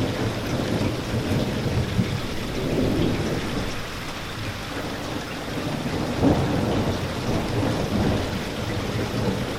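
Steady rain falling, with a low rumble of thunder underneath and a brief louder swell a little past the middle.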